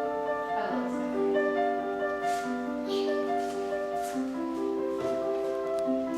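Background music: slow melody of long held notes, with piano.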